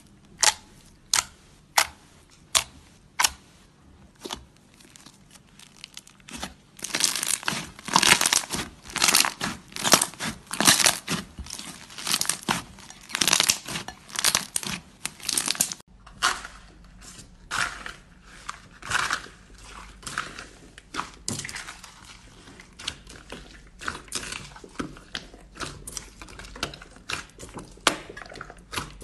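Hands pressing and squeezing slime, making sticky pops and crackles. It starts with separate sharp pops a second or so apart, turns into a dense run of crackling squelches, and after a cut about halfway through goes on as softer squishing with scattered pops.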